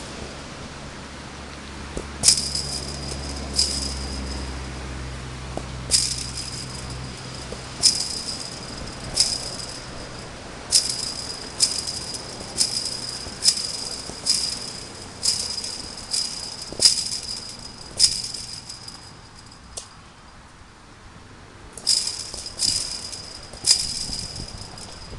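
Soccer ball kicked again and again against a chain-link fence, each hit setting the fence rattling with a bright metallic ring. About seventeen hits, roughly one a second, with a short pause a little before the end.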